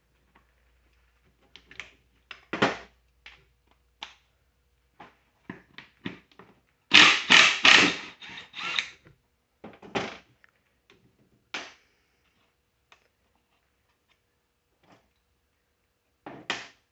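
Scattered metal clanks and knocks of tools and mower parts being handled while unbolting, with a dense run of loud knocks about seven to nine seconds in.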